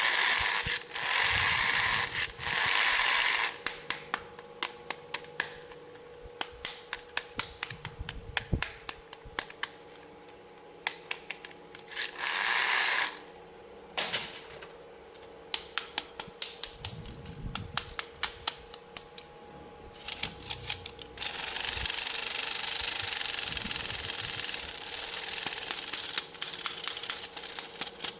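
Small plastic toy pieces and packaging being handled during an unboxing: many quick clicks and taps, several a second, with loud bursts of crinkling or tearing packaging in the first few seconds and again about halfway, and a longer stretch of rustling in the last third.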